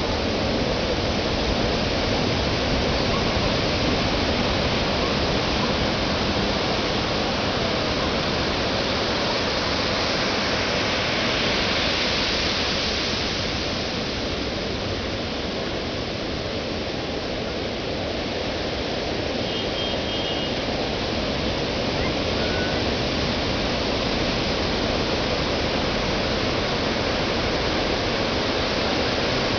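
Ocean surf breaking and washing up a sandy beach: a steady rushing noise that swells about twelve seconds in, then eases off for a few seconds before building again.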